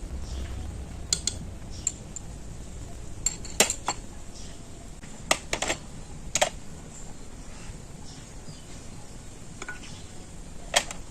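Kitchen utensils and cookware clinking: about nine sharp, separate clinks at irregular intervals, with a cluster in the middle and one more near the end.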